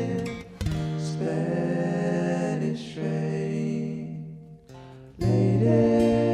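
Acoustic guitar playing chords that are let ring. The sound fades away around four seconds in, and a new chord is struck a little after five seconds.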